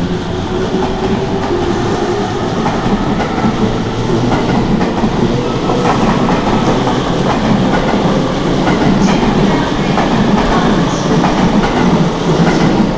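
E231-series Chuo-Sobu Line local electric train pulling out along the adjacent platform track, its cars rolling past with a steady noise of wheels on rail that grows a little louder toward the end.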